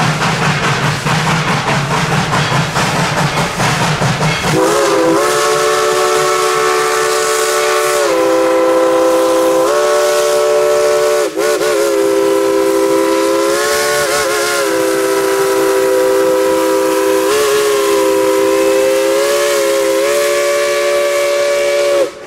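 A steam locomotive's whistle blows in long, drawn-out blasts as the train passes, several notes sounding together, their pitch dipping and rising a few times as it is worked. It comes in over the hiss and rumble of the moving train, which is all that is heard for the first four or so seconds.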